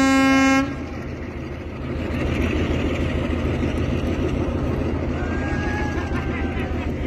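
Kalka–Shimla toy train's diesel locomotive horn sounding, cutting off under a second in, followed by the locomotive's engine running with a steady low rumble.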